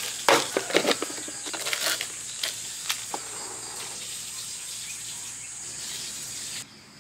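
Plastic packaging crinkling and tearing as an instant noodle cup and its seasoning packets are opened, then a steady pour of water from a stainless electric kettle into the paper noodle cup. A steady high insect buzz runs underneath, and everything stops abruptly near the end.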